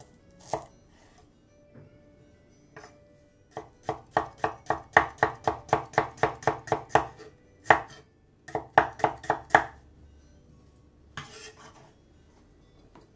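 Chef's knife slicing red shallots on a bamboo cutting board: a few single cuts, then two quick runs of knife strikes on the board at about five a second. Near the end comes a short scrape across the board as it is cleared.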